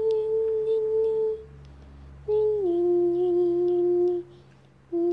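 A person humming long held notes with pauses between them. The first note is held level, the second steps down and holds lower, and the third starts low and rises near the end.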